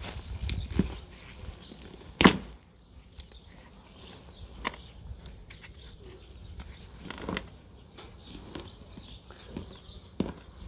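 Gloved hand rummaging and pulling in potting soil and plant debris in a plastic balcony planter: soft rustling and scattered small clicks, with one sharp click about two seconds in.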